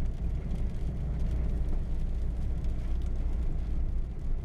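Volvo with a side-exit exhaust driving, heard from inside the cabin: a steady low engine and exhaust drone with road rumble.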